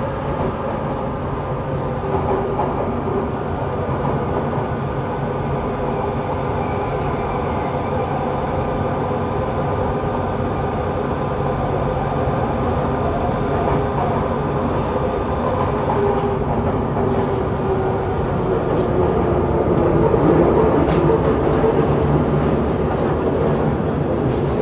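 Yokohama Municipal Subway 3000A-series train running on the line: continuous rumble of wheels on rail with steady tones from its Mitsubishi GTO-VVVF traction equipment, growing a little louder about twenty seconds in.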